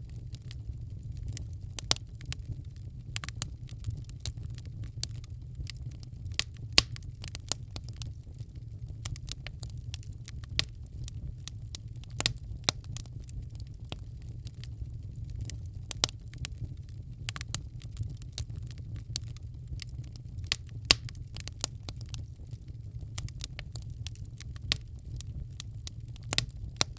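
Wood fire burning in a fireplace: irregular crackles and sharp pops over a steady low rumble.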